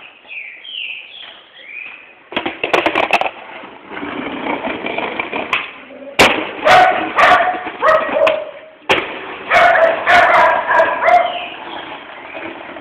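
Skateboard rolling on pavement, with a series of sharp clacks and knocks from the board. Loud sustained calls are heard over it.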